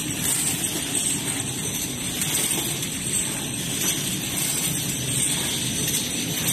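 Ampoule filling and sealing machine running, with a steady hiss from its row of gas burner flames sealing the ampoule tips over the even running noise of the mechanism.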